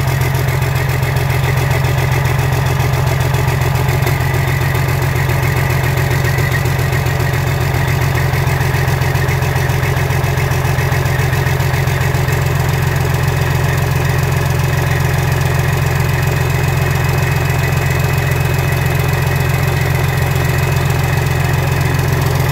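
Detroit Diesel Series 60 12.7-litre inline-six turbo diesel idling steadily on a test stand, with a low, even hum.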